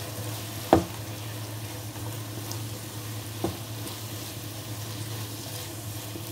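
Chicken and vegetables sizzling as they are stir-fried in a non-stick wok with a plastic spatula. The spatula knocks sharply against the pan twice, loudest just under a second in and again about three and a half seconds in.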